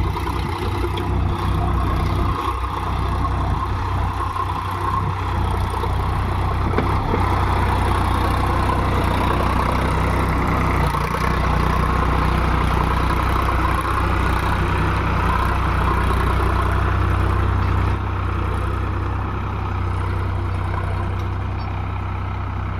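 Heavy diesel engine running steadily at an even speed, a deep rumble with a mid-pitched drone over it.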